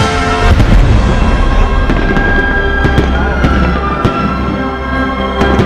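Fireworks bursting with several sharp bangs over loud music with long held notes.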